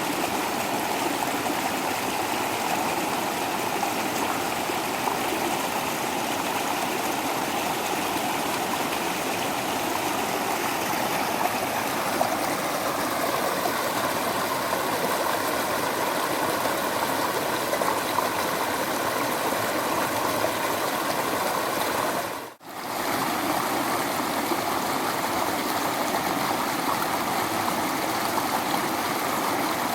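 Small waterfall rushing steadily, water splashing and flowing without a break except for a momentary drop-out about three-quarters of the way through.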